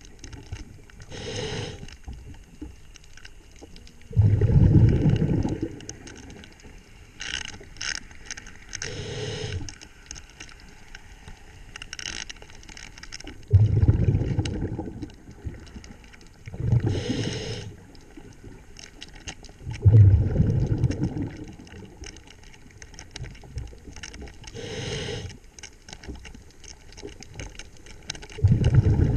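A diver breathing through a scuba regulator underwater: a short hiss on each inhale, then a louder low rumble of exhaled bubbles lasting a second or two, repeating several times.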